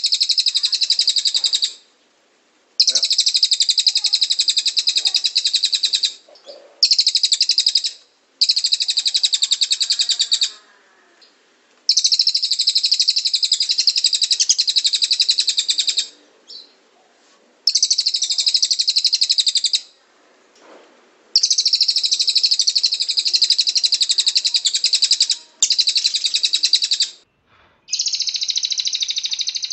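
Cililin songbird singing its rapid 'tembakan' song: dense, high, fast trilling bursts each lasting a few seconds, about nine of them, with short pauses between.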